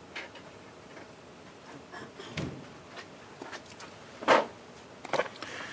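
A few scattered clicks and knocks of tools being picked up and handled, the loudest about four seconds in.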